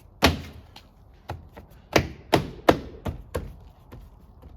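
Plastic door trim panel being pressed onto the door so its retaining clips snap home: a series of about seven sharp thumps and knocks, the loudest grouped about two seconds in.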